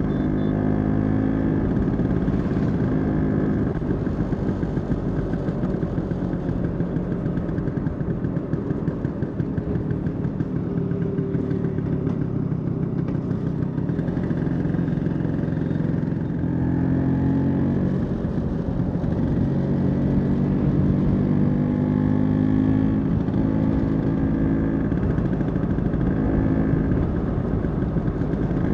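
Vespa scooter engine running under way at a continuous level. Its pitch rises and falls in steps as the rider changes speed, with a steady low rush of riding noise beneath it.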